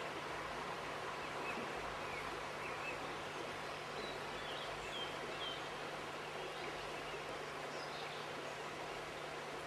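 Steady outdoor ambience of a flowing river, with a few short bird chirps about halfway through.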